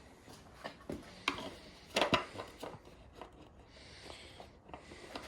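Light knocks, taps and rubbing from a motorcycle part being handled and offered up to the bike, with a quick cluster of louder knocks about two seconds in.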